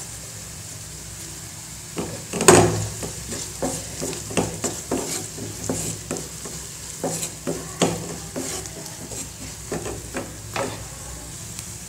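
Wooden spatula stirring and scraping onions, green chillies, garlic and spices sautéing in oil in a metal kadai, over a faint sizzle. The stirring starts about two seconds in with one loud scrape, then goes on as irregular scrapes and clicks.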